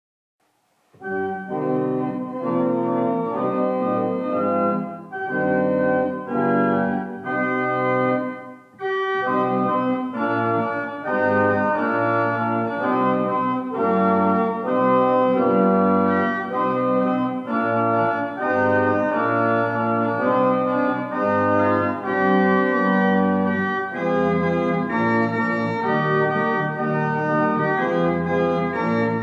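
Church organ playing chords and a melody in phrases. It starts about a second in, pauses briefly just before the ninth second, then plays on steadily.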